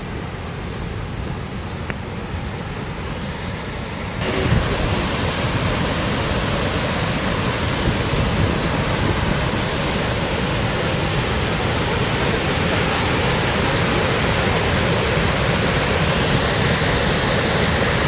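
Düden waterfall: river water rushing over a cliff edge in a steady, loud rush. About four seconds in, it becomes abruptly louder and fuller.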